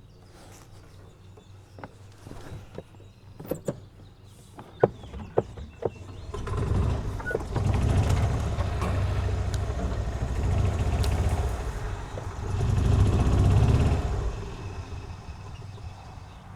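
Golf cart pulling away, running for about seven seconds with a low, steady rumble that swells near the end as it takes up the strain on a rope tied to a hanging tree limb. Scattered clicks and knocks come before it starts.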